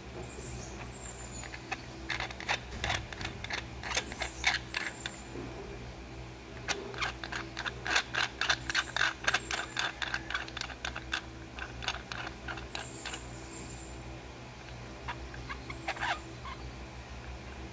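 Rapid clicking of a metal gate-type suppressor tube being turned and worked in the hands, in two main bursts and a few stray clicks near the end.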